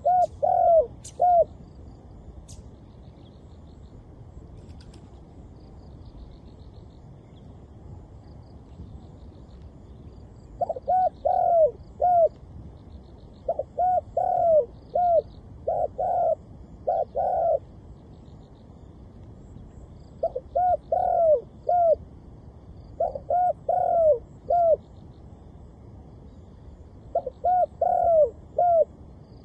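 Spotted dove cooing in short phrases of three or four notes: one phrase at the start, then after a long pause about six more phrases two to three seconds apart. Small birds chirp faintly in the background.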